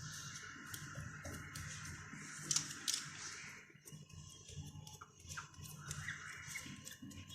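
Light rubbing and scraping with scattered small taps, from hand-cleaning the contact edge of an LCD panel's glass before a new COF strip is bonded on, over a faint steady hum. The rubbing stops about four seconds in.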